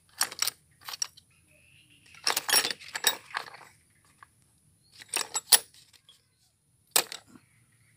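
Metal hand tools and parts clinking and rattling against metal in several short clusters, with pauses between them; the loudest clink comes about five and a half seconds in.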